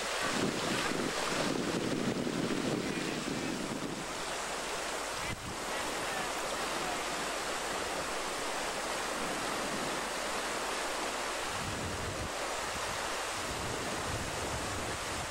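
Steady rush of whitewater rapids. Wind buffets the microphone with a low rumble in the first few seconds and again near the end.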